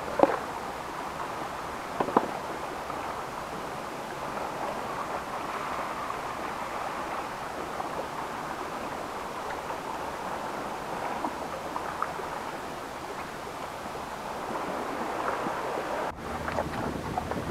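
Steady wash of sea surf and wind on a rocky shore, with a few sharp knocks: one at the start and a close pair about two seconds in.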